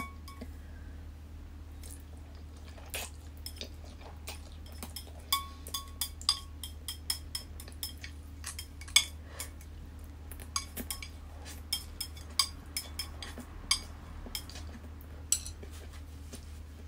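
Chopsticks clicking and scraping against a bowl as the last of the noodles are scooped up and eaten: scattered light, irregular clinks through most of the stretch, over a faint steady low hum.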